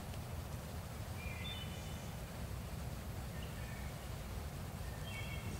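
Three faint, short bird calls, about a second and a half in, about three and a half seconds in, and near the end, over a steady low rumble.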